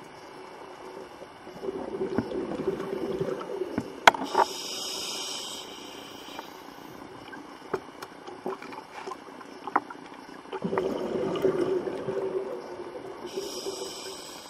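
Scuba diver breathing through a regulator underwater: a burbling rush of exhaled bubbles, then a hissing inhale, twice over. Scattered sharp clicks and taps, the loudest about four seconds in.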